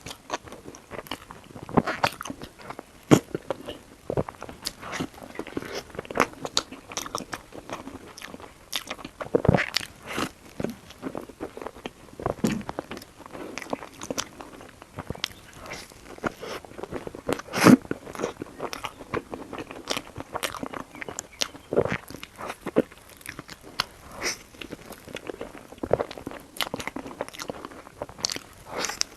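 A person biting and chewing crunchy food close to the microphone: irregular crunches and wet chewing clicks, with a few louder bites about 3 seconds in and again past the halfway mark.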